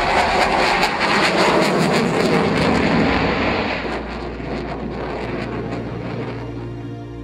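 Jet engine roar that stays loud for the first few seconds and then fades away, giving way to a low, steady music drone near the end.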